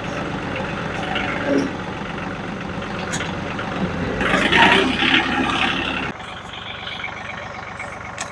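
Engine running steadily, growing louder for a couple of seconds past the middle, then dropping suddenly to a lower, quieter running about six seconds in.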